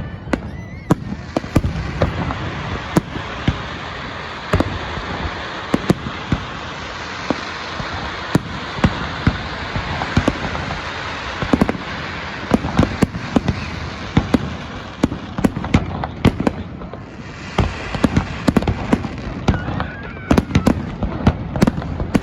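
Fireworks going off: a steady stream of sharp bangs, several a second at times, over a continuous crackling hiss that thins out briefly about seventeen seconds in.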